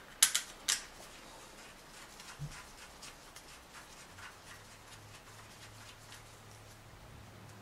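Small metal clicks and light scraping as steel stud bolts are threaded by hand into the end of a camshaft: three sharp clicks in the first second, then faint scratchy ticking.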